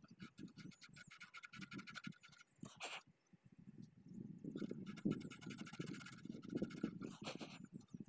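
Faint, irregular clicking and scraping of fingers handling the wires and brush contacts of a center pivot irrigation collector ring head, close to the microphone. There is one louder rasp just before three seconds in.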